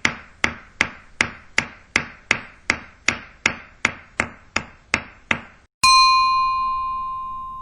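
Hammering sound effect: a steady run of hammer blows, about two and a half a second. About six seconds in, it gives way to a glass ping, one bright ringing tone that slowly fades.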